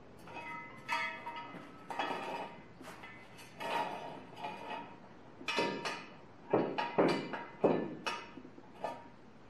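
Steel jack stand being set under the car: a run of metal clinks, scrapes and knocks with a brief ringing tone, the loudest knocks coming in the second half.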